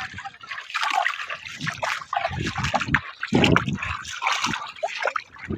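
Shallow water splashing and trickling around people wading knee-deep, in irregular sloshes with a heavier splash about three and a half seconds in.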